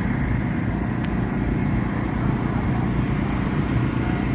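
Steady low drone of running engine machinery, with a few faint steady whining tones above it.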